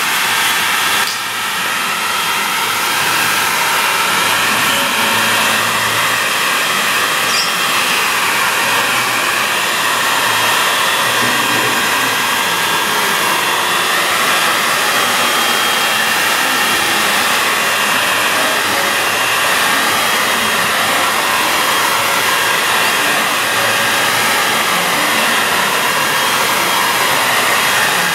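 Handheld hair dryer running steadily, blowing over a wet watercolour wash to dry the paint, its whine wavering slightly as it is moved about.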